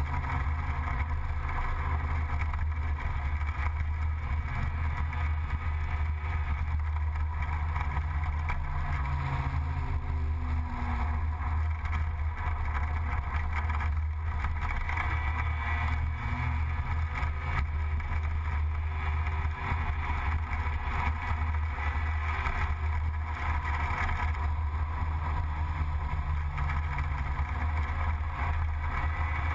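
Gilera Runner 180 scooter's two-stroke single-cylinder engine running steadily at cruising speed while riding, with a constant low drone and rushing road and wind noise.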